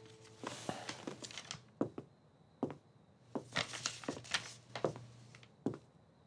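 Sheets of paper rustling and crinkling as they are handled, in two spells with a few light clicks between.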